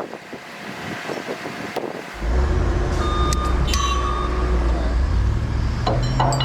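Heavy construction machinery engine, such as a crane or lift, cutting in suddenly about two seconds in and running with a steady low drone that rises a little in pitch near the end. A few short high beeps sound over it around the middle.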